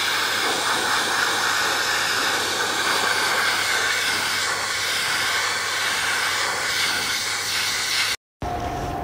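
Vacuum cleaner running with a steady suction hiss as its hose nozzle is drawn through an American Akita's thick shedding coat. It cuts off abruptly about eight seconds in, and a quieter steady hum follows.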